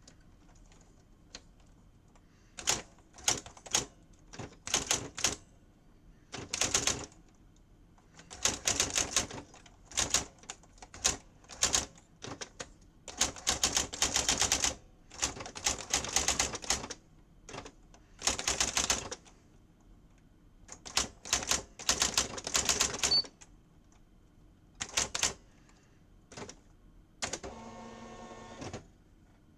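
Sears 10k40 electronic daisy wheel typewriter printing: bursts of rapid hammer strikes, some lasting a second or two, with a steady motor whir of over a second near the end.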